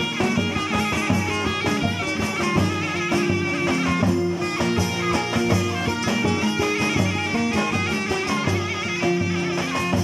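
Live Turkish folk music instrumental interlude: a reed wind instrument carries the melody over strummed bağlamas (saz), with a steady beat.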